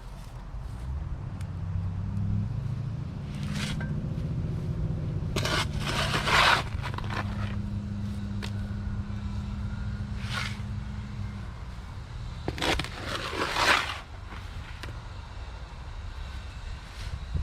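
Several scraping strokes, from wet concrete being worked in around a wooden fence post, over a low motor hum that comes in about two seconds in and fades out after about ten seconds.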